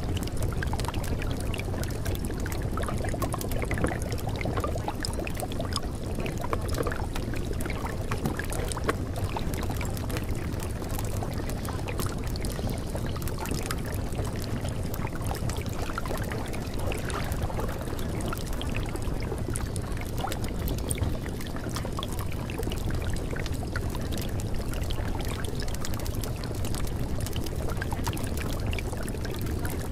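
Steady running-water sound with a fine crackle through it, used as the masking track of a subliminal, over which the positive affirmations are meant to be hidden.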